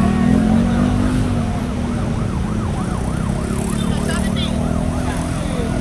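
An emergency vehicle siren in fast yelp mode, its pitch rising and falling about three times a second for a couple of seconds in the middle, over the steady noise of a crowd and traffic.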